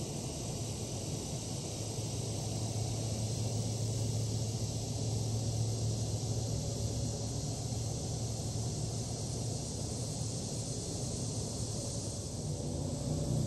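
Outdoor ambience: a steady low rumble that swells slightly about halfway through, under a constant high hiss.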